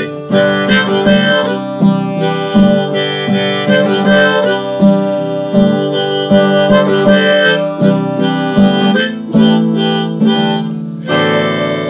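Harmonica played in a neck rack over a strummed acoustic guitar, an instrumental break with the harmonica carrying a melody of quickly changing notes. It settles into a long held note near the end.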